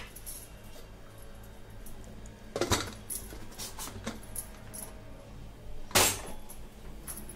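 Metal clinks and knocks of an aluminium pressure cooker being closed with its lid, a small cluster of clinks nearly three seconds in and a single louder clank about six seconds in.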